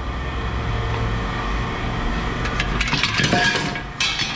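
Scraping and rattling of hard objects being handled about two and a half seconds in, then a sharp knock near the end, over a steady low rumble.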